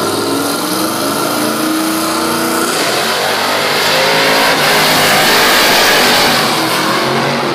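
Drag-race cars launching and accelerating hard at full throttle down the strip. The engines come in loud all at once, their note climbs over the first few seconds, and then the sound grows fuller and louder, peaking around five to six seconds in.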